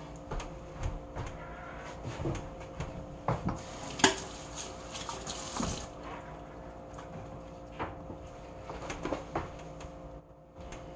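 Kitchen faucet running into a stainless steel sink while hands are rinsed, with scattered clinks and one sharp clink about four seconds in; the water stops about six seconds in, leaving a few light knocks.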